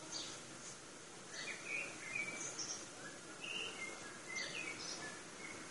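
Songbirds calling in short chirps, a few notes early on and two livelier bursts of song about a second and a half in and again near the end, over a steady background hiss of outdoor noise.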